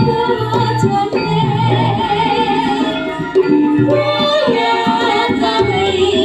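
Javanese gamelan music with a sinden, a female singer, singing long notes that bend and glide, over drumming and sustained instrumental tones.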